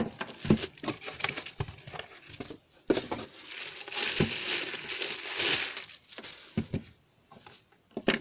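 Plastic bag crinkling and rustling as a soldering station unit is pulled out of its wrapping, with short knocks from handling. It grows quieter after about six seconds, leaving a few isolated knocks as the unit is set down.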